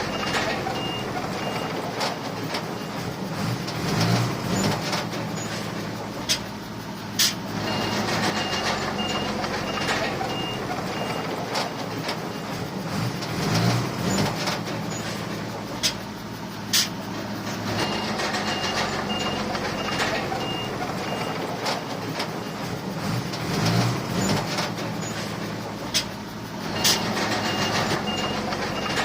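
Heavy diesel earthmoving machinery running steadily, with a reversing alarm beeping about twice a second in several runs of a few seconds each. A few sharp clanks stand out.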